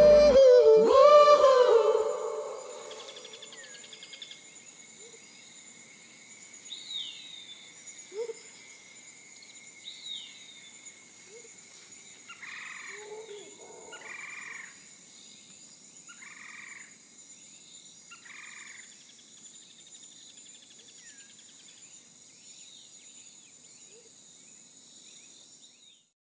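Sung pop music ends in the first two seconds. After that comes faint outdoor ambience: a steady high-pitched hiss, a couple of short falling chirps, and then four short animal calls a second or two apart.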